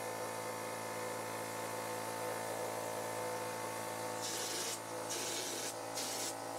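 Small air compressor running with a steady hum. From about four seconds in, a hopper texture spray gun hisses in several short bursts as wet popcorn ceiling texture is blown onto the ceiling, in bursts because the small compressor has to rebuild pressure between them.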